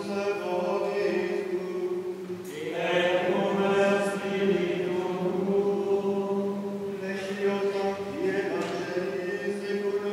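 Latin Gregorian chant sung by male voices in long held notes, moving to a new note about two and a half seconds in, echoing in a stone church.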